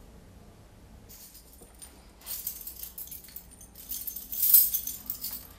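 A bunch of keys on a ring jangling in a hand, in several bouts that grow louder, the loudest about four and a half seconds in.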